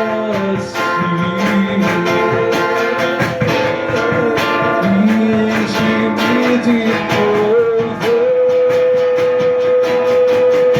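Live worship music: guitar strumming with a gliding melody line over it, which settles into one long held note about eight seconds in.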